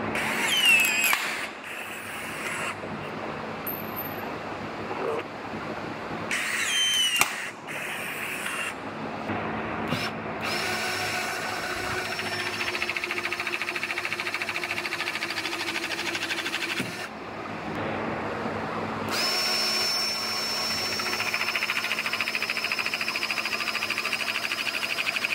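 Battery-powered rivet tools setting rivets in aluminum body panels. Short motor whines that rise and fall come first, then two long steady motor runs with a fast pulsing as the hydraulic self-piercing rivet tool presses rivets. The sound is cut abruptly between clips.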